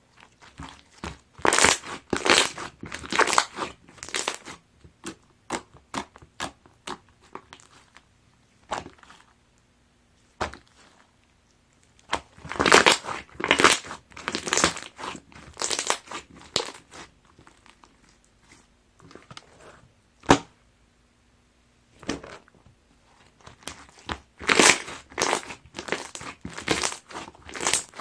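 Hands pressing and squishing chocolate slime, giving runs of quick sticky clicks and pops with quieter pauses between.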